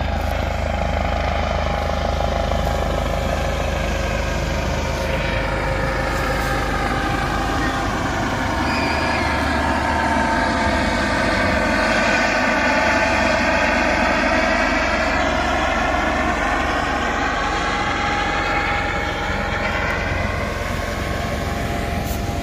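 Helicopter flying over, a steady drone of several tones whose pitch slowly shifts as it passes, growing louder toward the middle and easing off near the end.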